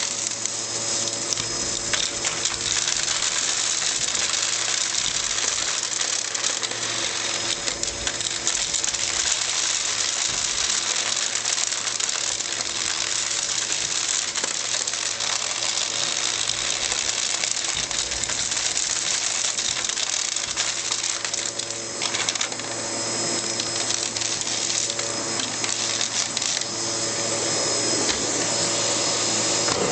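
Hoover Pure Power bagless vacuum cleaner running steadily, with a constant hum and rush of air. Many small, irregular clicks and rattles of hard bits striking inside the cyclone pre-filter box. The sound dips briefly about two-thirds of the way through and grows a little louder near the end.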